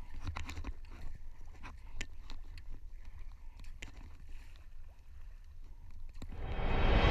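Surfski paddling: the paddle blades dip and splash, and water laps against the hull in short, scattered splashes over a low wind rumble on the microphone. About six seconds in, a loud sound swells up quickly.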